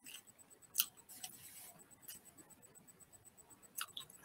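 Faint chewing of palitaw, a sticky rice cake coated with roasted coconut, sugar and peanuts: a few soft mouth clicks, two close together near the end.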